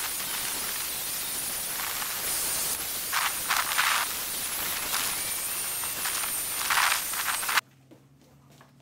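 Handheld electric belt sander running on weathered timber: a steady high whine with the rasp of the belt on the wood, louder in a few short stretches. The sound stops abruptly near the end.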